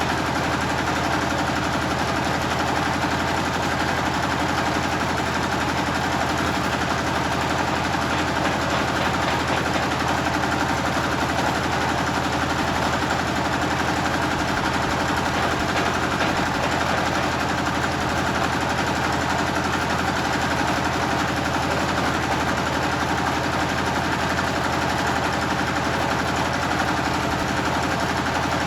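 Generator engine running steadily at constant speed, a loud, even, rapid chugging with no change in pitch or level.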